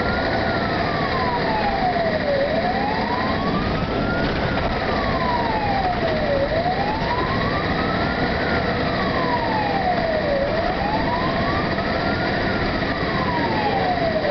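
Fire engine's siren wailing, slowly rising and falling about once every four seconds, over the truck's engine and road noise, heard from inside the cab.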